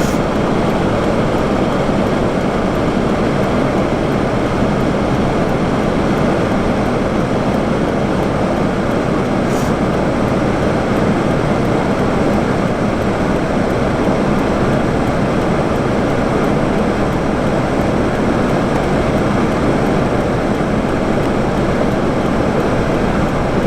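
Blizzard wind buffeting the microphone: a steady, unbroken rumbling noise.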